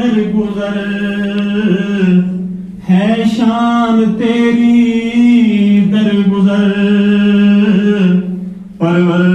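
A man chanting a hamd, a hymn in praise of God, with no instruments. He sings in long held notes and breaks for breath about two and a half seconds in and again near the end.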